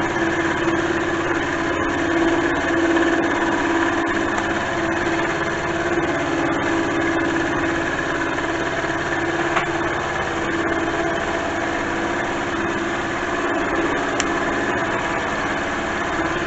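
Milling machine's cutter taking a finishing pass through a steel block under power feed, a steady machine sound with a constant pitched tone. The cutter is cutting smoothly at this speed and feed.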